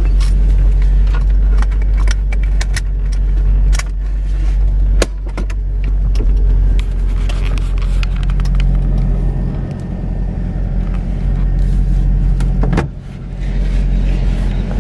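A 1977 Toyota Celica's engine running as the car drives slowly, heard from inside the cabin: a steady low drone that drops off briefly about five seconds in and again about thirteen seconds in, with scattered clicks and rattles over it.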